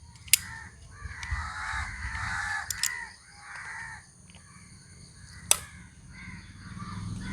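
Crows cawing over and over in short calls, with a few sharp clicks in between, the loudest about five and a half seconds in.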